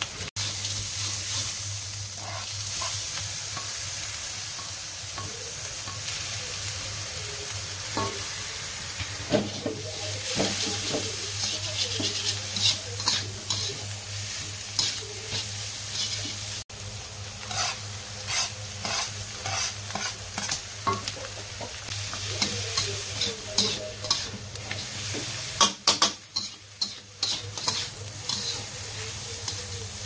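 Perforated metal spatula scraping and clicking against a wok as egg, shredded chicken and cabbage are stir-fried, over a steady sizzle. The clatter comes in runs of quick strokes, with a low steady hum underneath.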